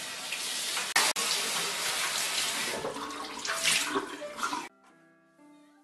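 Water running from a bathroom sink tap and splashing as a cloth is rinsed and wrung under it; it cuts off abruptly near the end and soft piano music follows.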